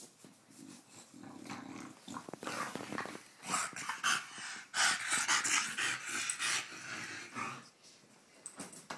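British Bulldog growling as it wrestles and chews a plush toy cow in play. The rough growls build over the first few seconds, are loudest midway, and fade near the end.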